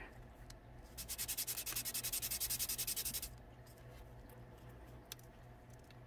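A tiny thin wooden piece rubbed back and forth by hand on sandpaper: a quick run of rapid scratchy strokes lasting about two seconds, then a single light click near the end.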